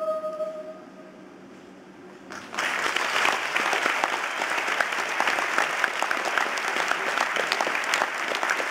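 A woman's held sung note fading out in the first second, then a short hush; about two and a half seconds in, a concert audience breaks into steady applause that carries on.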